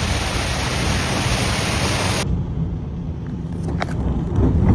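Steady, loud hiss of a heavy hailstorm downpour. About two seconds in it cuts off suddenly and gives way to a low rumble of wind on the microphone with a few sharp clicks.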